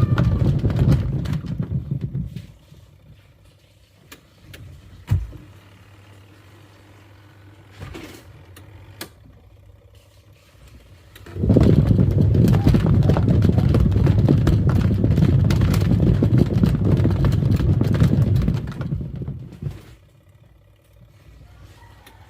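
Twin-tub washing machine's wash tub churning foamy water in loud low rumbling spells. It stops after about two seconds, leaving a faint motor hum and one knock, then runs again for about eight seconds from halfway through before pausing.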